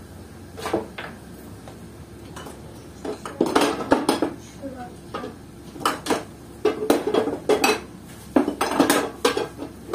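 Pots, pans and metal kitchenware clanking and knocking against each other as someone rummages through a low kitchen cupboard, in several clusters of clatter.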